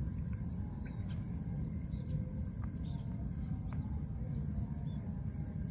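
Quiet outdoor ambience: a steady low rumble with a few faint, short bird chirps scattered through it.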